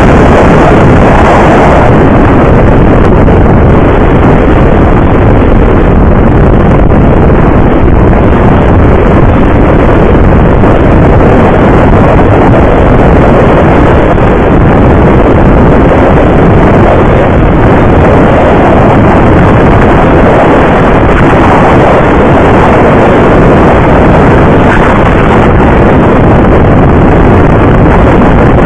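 Motorcycle riding at highway speed: loud, steady wind buffeting on the microphone of a handlebar-mounted camera, mixed with the motorcycle's running engine.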